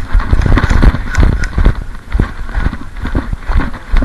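Running footsteps in snow, close up, about three steps a second.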